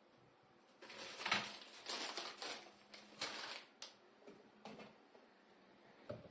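Rustling, crinkling handling noises in a run of short bursts from about a second in to nearly four seconds, then a couple of fainter knocks.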